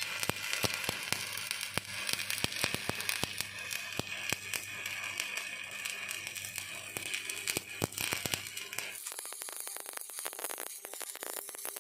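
Electric arc welding on steel: the arc crackles and sizzles steadily, with a low hum under it that stops about nine seconds in while the crackle goes on.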